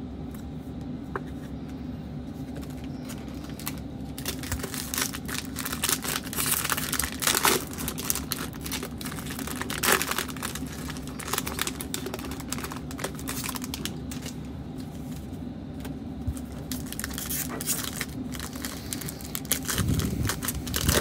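Panini Prizm basketball card pack wrappers being torn open and crinkled by hand. From about four seconds in there is a dense run of sharp crackles and rustles over a steady low hum.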